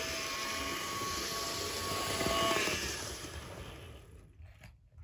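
Roco H0 model diesel locomotive (BR 215) running on its track: a steady electric motor whirr and wheel rumble with a thin steady whine. The whine stops about three seconds in and the running noise dies away after it.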